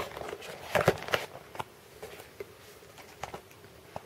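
Hands handling a softcover book and its card packaging: a quick cluster of paper rustles and taps about a second in, then a few light, scattered taps.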